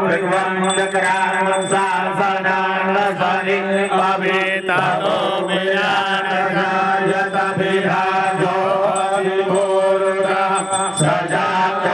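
Hindu mantra chanting, sung continuously by voices over steady held tones.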